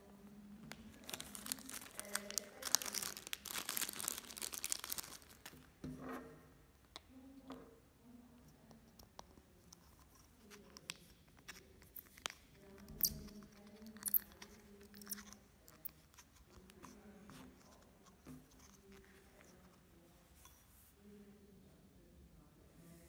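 Plastic bag crinkling as it is handled and opened, loudest in the first few seconds. Then a scatter of small clicks and taps as the steel crank of a Comandante hand grinder and its clear plastic crank lid are handled and the lid is twisted and pushed onto the crank.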